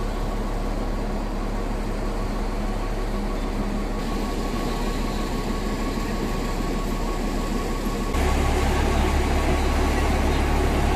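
ZDM-5 narrow-gauge diesel locomotive idling close by, a steady engine hum with a constant drone. About eight seconds in it gets louder and deeper.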